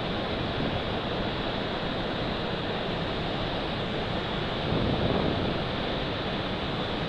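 Steady rushing roar of Shifen Waterfall, a broad curtain of water swollen and muddy after a day of heavy rain.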